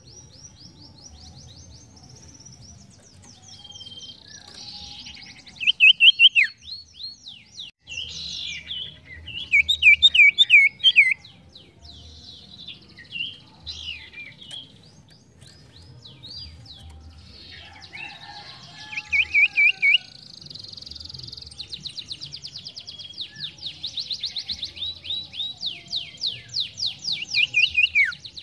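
A sirtu, a small cage songbird, singing in rapid high chirps and fast trills, with loud bursts of clear looping whistled notes about six, ten and nineteen seconds in. Near the end it runs into a long, fast, steady trill.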